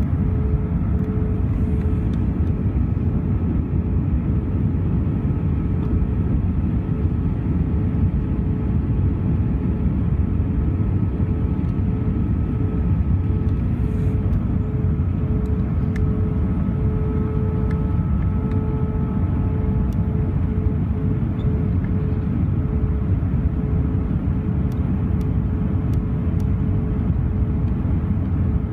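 Cabin noise of an Airbus A320 on final approach, heard from a window seat over the wing: a steady rumble of engines and airflow with a steady hum running through it, flaps extended for landing.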